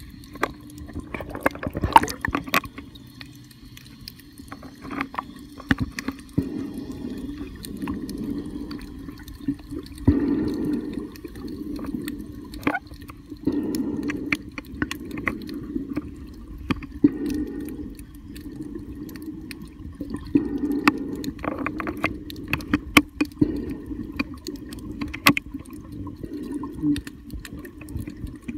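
Muffled underwater water noise heard through a submerged camera, swelling in low rushing surges every three or four seconds, with scattered sharp clicks throughout.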